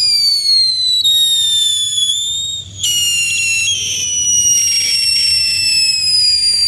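Ground fountain firework spraying sparks with a loud, shrill whistle that slides slowly down in pitch. The whistle breaks off briefly about two and a half seconds in, then starts again higher and falls again.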